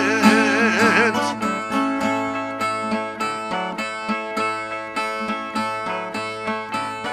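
A repentista's singing voice holds the last note of a stanza, wavering, and fades out about a second in. Then the Brazilian ten-string viola plays the plucked instrumental interlude between stanzas, a repeating pattern of picked and strummed notes.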